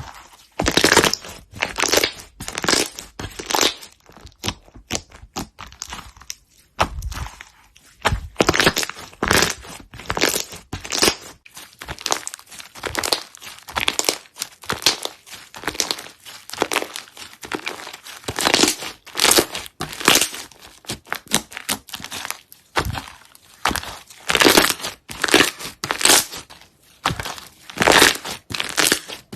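Hands squishing, pressing and stretching slime, in quick irregular bursts of sound with short gaps between them.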